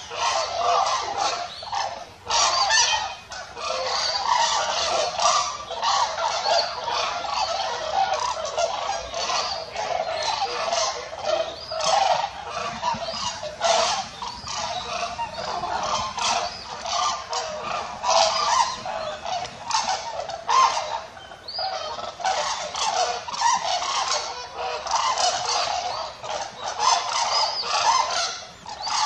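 A large mixed flock of red-crowned cranes and white-naped cranes calling, with many loud calls overlapping in a continuous chorus.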